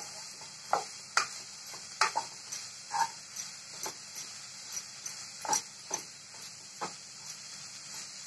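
A wooden spatula knocks and scrapes against a nonstick kadhai while stir-frying chopped red amaranth leaves. About a dozen irregular strikes come roughly once or twice a second, over a steady faint hiss.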